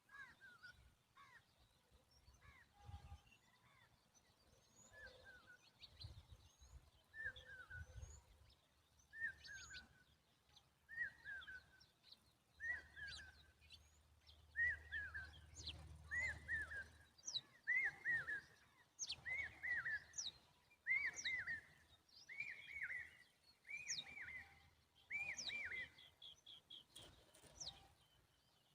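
Common babbler calling over and over, a short falling call about once a second, growing louder and then stopping a few seconds before the end: the bird's noisy calling in defence of its young.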